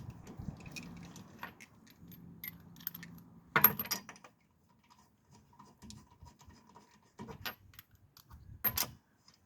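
Light metallic clinks and scrapes of hand tools and parts being handled, with a sharper clank about three and a half seconds in and another near the end.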